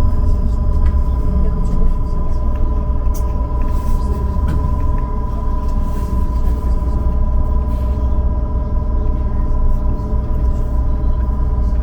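Trolleybus running, heard from on board: a steady low rumble of the ride with a constant high-pitched whine from its electric drive equipment.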